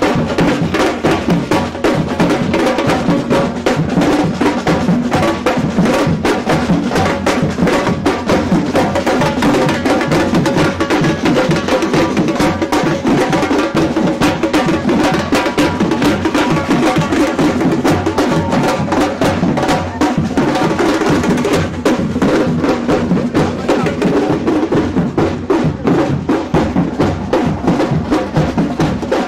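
Samba percussion band playing live: a loud, dense drum rhythm that runs on without a break.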